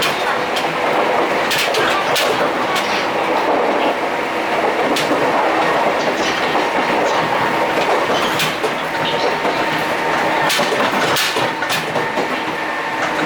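Ex-JNR 103-series electric train car heard from inside at the gangway while running. Dense, steady running noise carries irregular sharp clanks and rattles from the gangway plate and bellows, plus wheels clicking over rail joints and a faint steady whine.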